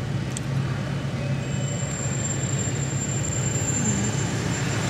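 Steady low hum of a car's engine and road noise heard from inside the cabin, with a faint high-pitched whine coming in about a second and a half in.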